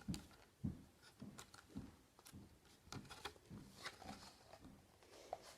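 Faint handling noise: scattered light taps, clicks and soft knocks of small plastic parts and packaging being handled.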